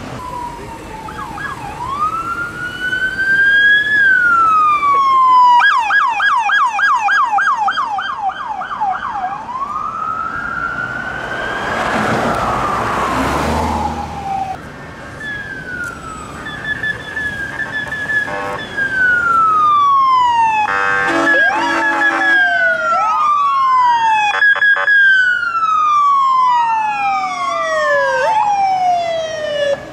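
Electronic sirens of passing police and fire vehicles, going from a slow rising-and-falling wail to a fast yelp and back. Near the middle there is a short loud rush of noise, then a few short horn blasts. Near the end two sirens wail at once, out of step with each other.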